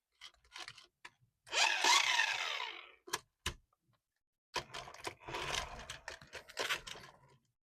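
Small plastic clicks and rustling from handling a toy and its packaging, with a short electronic sound effect of gliding tones about two seconds in and a denser run of clicks and rustling in the second half.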